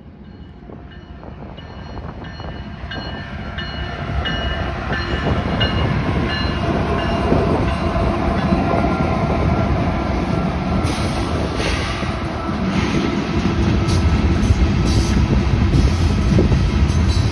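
Union Pacific diesel freight locomotives rumbling closer and passing by, their engines growing louder over the first few seconds, then freight cars rolling past with wheel clicks on the rail joints.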